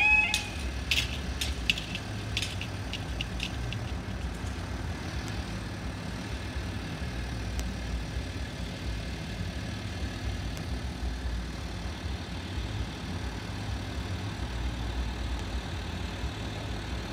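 The level crossing's warning alarm cuts off right at the start, and a run of sharp clicks rings out and fades over the next few seconds. After that a steady low engine rumble goes on: a road vehicle idling while it waits at the closed crossing.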